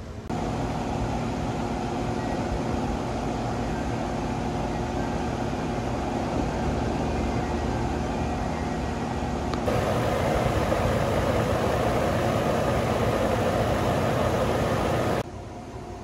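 Steady mechanical hum of an outdoor air-conditioning condenser unit running, with a few steady tones in it. It gets louder about ten seconds in and drops off abruptly shortly before the end.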